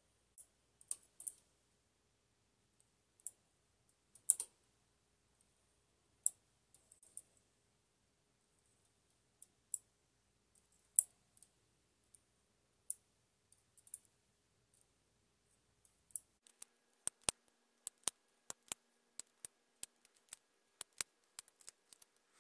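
Small, sharp metal clicks of a hand tool and yarn against the latch needles of a standard-gauge knitting machine's needle bed, scattered at first and coming faster and closer together in the last few seconds.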